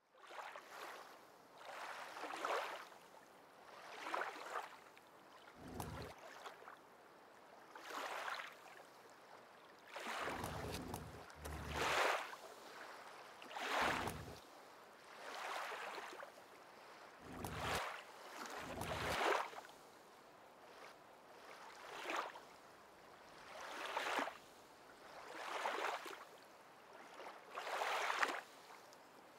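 Water washing against a boat in a slow rhythm, swelling and fading about every two seconds, with a few short low thumps now and then.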